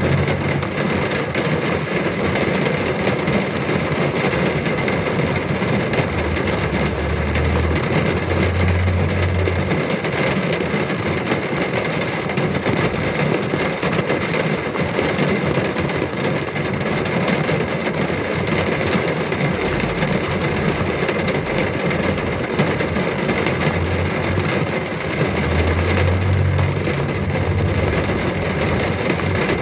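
Heavy rain pelting a car's roof and windscreen, heard from inside the cabin as a dense crackle of drops likened to fireworks. A low engine hum swells twice under it.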